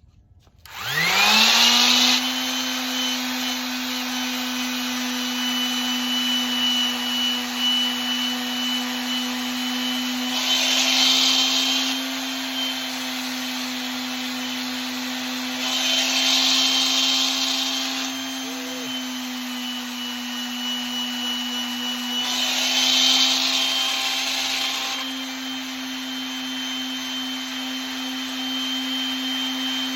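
Electric sander starting up about a second in and running at a steady hum, with four spells of louder scratchy grinding as the sandpaper is pressed against the brass putter head.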